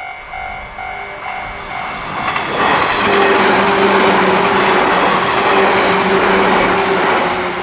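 Japanese level-crossing warning bell dinging at about two strokes a second; about two and a half seconds in, a 115-series electric train passes close by, and its running noise drowns out the bell for about five seconds before easing near the end.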